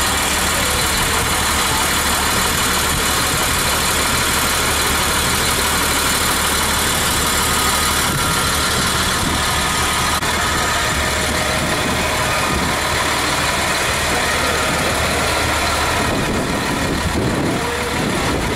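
Fire engine's engine running steadily, with hoses coupled to its pump.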